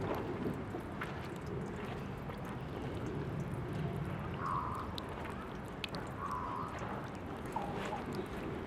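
Tap water running from a park drinking fountain's faucet and splashing steadily, with small sharp drip and splash ticks scattered through it.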